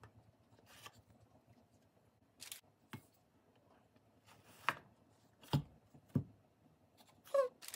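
Steel bench scraper pressed down through a log of handmade soap in a bamboo cutting box: a handful of short, sharp cutting sounds and knocks of the blade and soap against the wood, spaced a second or so apart.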